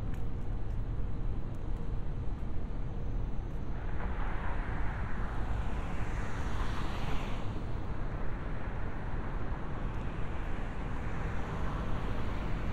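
Night-time city road traffic: a steady low rumble, with a car passing that swells from about four seconds in and fades by eight, and another approaching near the end.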